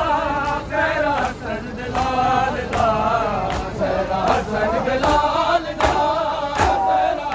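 Men's voices chanting a Shia noha in unison, a mournful repeated refrain. Sharp slaps keep an even beat under it, about one every three-quarters of a second, clearest in the second half: chest-beating (matam) in time with the chant.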